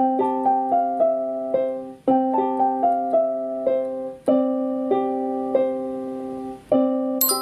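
Background music: a gentle electric piano melody of short notes over a held low chord, in phrases that restart about every two seconds.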